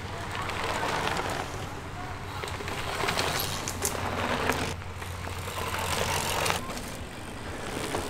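Cyclocross bikes passing one after another on a dirt trail: tyres crunching over the dirt and leaves, with some rattle from the bikes, swelling as each rider goes by and fading between them. A steady low hum runs underneath.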